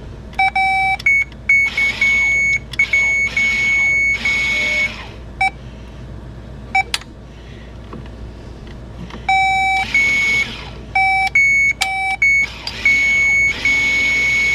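A power probe beeps in irregular on-off tones at two pitches as it energizes the electronic parking brake motor of a BMW M550i rear caliper. In several spells the caliper's small motor whirs while it winds the piston back. Near the end there is one long held beep.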